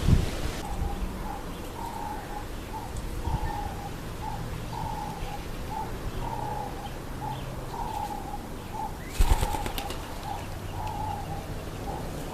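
A dove calling a steady string of short notes, about two a second. About nine seconds in comes a brief burst of wing flapping as the young dove flutters its wings.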